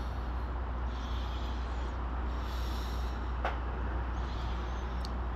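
Steady outdoor background noise with a low rumble, and one light click about three and a half seconds in.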